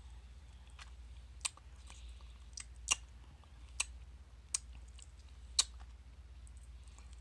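Close-up mouth sounds of eating ripe mango: sucking and chewing soft, stringy flesh pulled from the peel, with sharp wet smacks and clicks of the lips and tongue about once a second, five of them louder than the rest.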